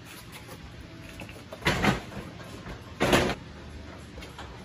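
A couch being shoved and dropped onto a flatbed truck's deck: two short, loud scraping knocks, about two seconds in and again about a second later.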